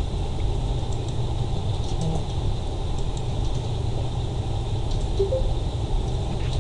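Steady low rumbling background noise on a call's audio line, with no speech, from a participant's microphone or connection. There are two faint short blips about five seconds in.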